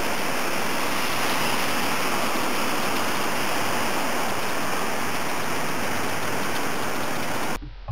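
Steady, even rushing noise with no distinct events, like rain or running water heard outdoors, cutting off abruptly near the end.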